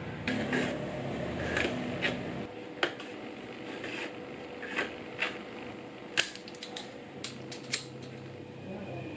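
Hand-stitching the edge of a leather wallet: needle and thread worked through the leather, with a scattered run of small clicks and taps. Sharp clicks about six seconds in and again near the end, as a lighter is struck to seal the thread end.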